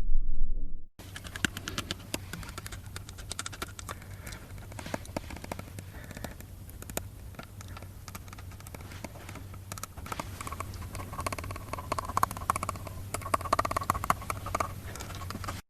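Quiet sound effect: a dense, irregular run of small clicks and taps over a steady low hum, lasting about fifteen seconds. A loud sound ends about a second in.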